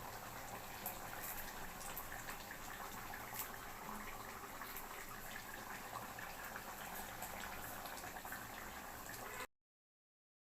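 Chicken kulambu curry bubbling as it simmers in the pot, a steady seething with small popping bubbles. It cuts off abruptly to silence near the end.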